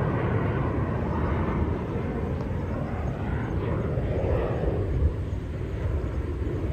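Jet airliner engines climbing out after takeoff: a steady low rumble with slowly swelling mid-range noise.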